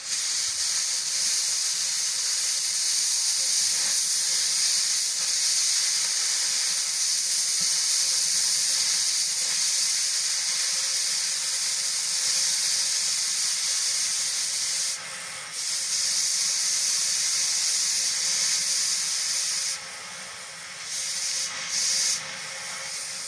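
Gas cutting torch hissing steadily as its flame pierces holes through sheet steel. The hiss dips briefly about fifteen seconds in and again near the end.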